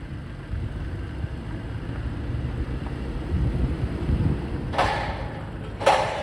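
Pickup truck driving on a dirt trail: a steady low engine and road rumble that swells slightly, with two short noisy bursts near the end.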